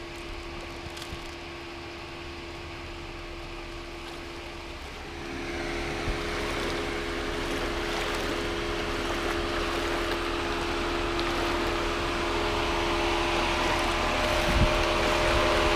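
A vehicle engine running with a steady hum. About five seconds in, a broad rushing noise joins it and grows steadily louder.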